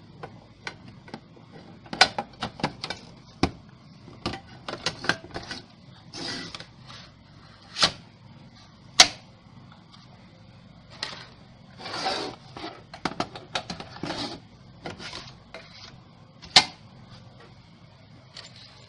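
Irregular clicks, knocks and a few short scrapes of hands working on a Dell PowerEdge R720 server's metal chassis and parts after a RAM module has been fitted.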